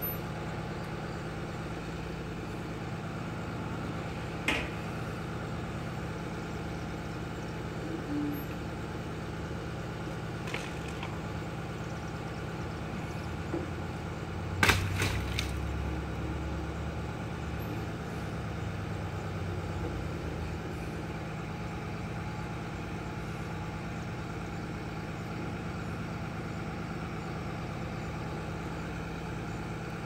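A bucket truck's engine idling steadily. Sharp knocks cut through it, one about four seconds in and a quick cluster of louder knocks with a low thud about halfway.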